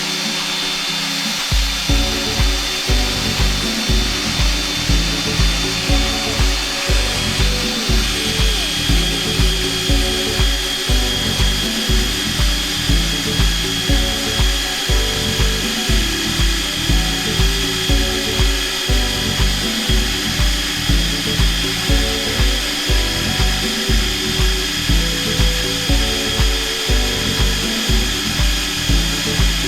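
Background music with a steady beat of about two kicks a second, over the steady whine of a magnetic drilling machine running.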